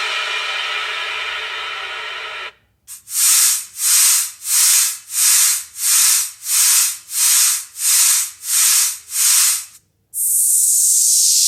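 Hissing sound effects: a hiss that fades over the first two seconds, then about ten rhythmic hissing puffs, roughly one and a half a second, then a loud steady hiss starting near the end.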